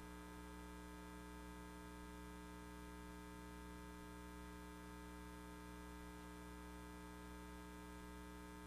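Faint, steady electrical mains hum, several tones stacked one above another and unchanging throughout.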